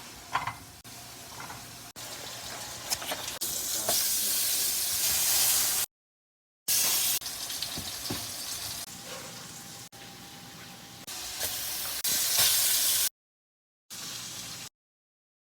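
Burger patties and vegetables sizzling and spitting in hot oiled frying pans. It is heard as several short clips joined together, each cutting off abruptly.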